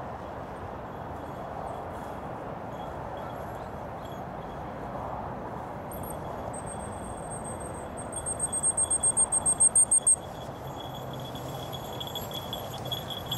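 Small bell jingling, likely on a running English Pointer puppy's harness, in quick rhythmic pulses of about six a second that grow louder and stop abruptly, over a faint steady ringing and steady outdoor background noise.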